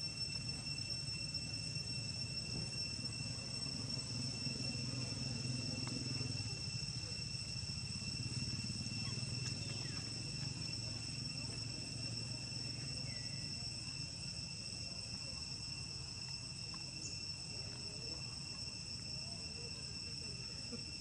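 Steady, high-pitched insect drone holding two even tones, over a low background rumble.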